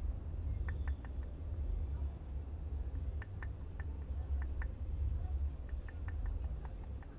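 Young waru leaves being pounded in a mortar: dull low thudding that comes and goes unevenly. Short high chirps sound in small clusters over it.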